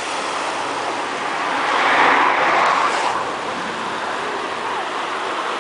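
Waves washing over a rocky shore, a steady rushing noise, with a louder rush about two seconds in that ends sharply about a second later.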